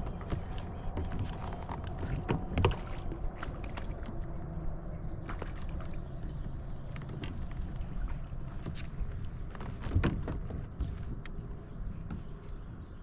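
Scattered knocks and clicks on a fishing kayak over a steady low rumble, with louder knocks about two and a half seconds in and again about three-quarters of the way through.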